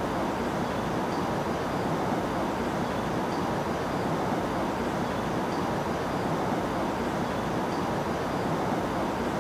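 Steady, unbroken rushing noise with a faint even hum underneath.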